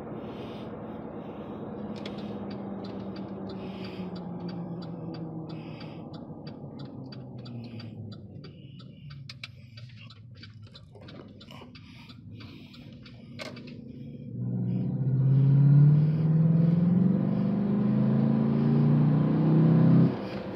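Cab of a 2011 Chevrolet Silverado Z71 on a test drive after a transmission flush. The engine quietens as the truck slows, with a turn signal ticking evenly through the first half. About two-thirds in, the engine revs up hard, its pitch climbing and dropping back as the automatic transmission upshifts, then cuts off suddenly near the end.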